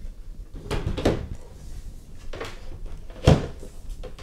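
Ultimaker S5 3D printer being lowered and set onto the Ultimaker Material Station beneath it: a few knocks and clunks, with a sharp, loud one about three seconds in as it comes to rest.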